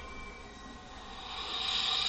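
Soundtrack of a TV clip playing through computer speakers: faint music fades out, then a hiss swells through the second half.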